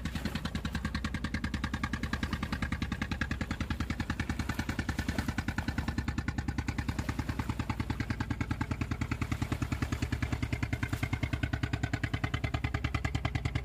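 Engine idling with a fast, even thudding beat over a steady low hum.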